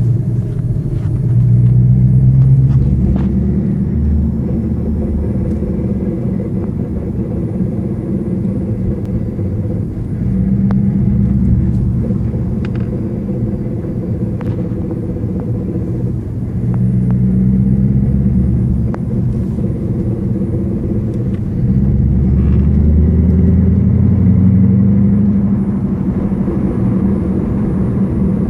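Rear end of a 2014 Ford Mustang giving a low rumbling drone with a whine in it, swelling louder several times and easing back. The owner suspects the pinion bearings or gears, a whining, grinding kind of fault.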